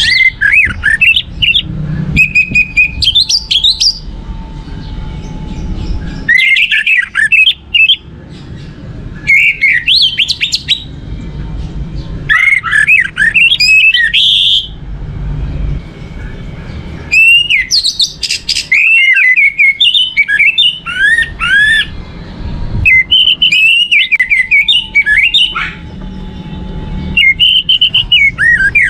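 Orange-headed thrush (anis merah) singing: loud phrases of quick, varied whistled and sliding notes, each a few seconds long, repeated about seven times with short pauses between, over a low background rumble.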